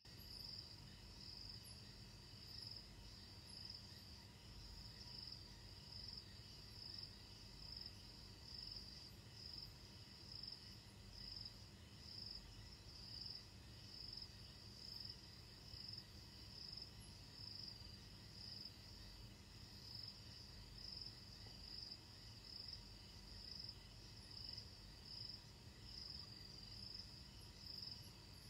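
Crickets chirping in a steady high-pitched trill that pulses about once a second, with a faint low steady hum underneath.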